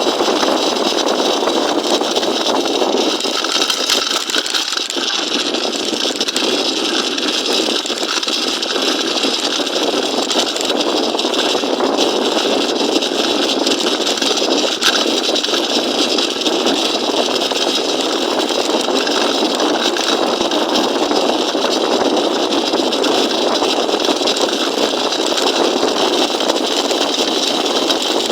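Small engine of a motorized bicycle running steadily.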